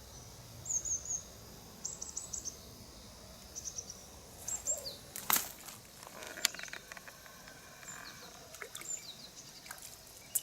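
Small birds singing in short, high chirping phrases that repeat every second or two, with a couple of sharp clicks a little past the middle.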